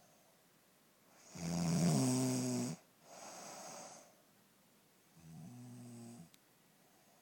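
A woman snoring in her sleep: one loud, rattling snore about a second and a half in, a breathy rush of air after it, then a second, quieter snore about five seconds in.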